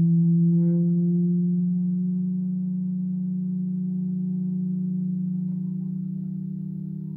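Halldorophone feedback drone: a sustained low tone from the D-string interfering with a sympathetic string, with a regular beating pulse as the two pitches sit close together. It slowly gets quieter over the few seconds.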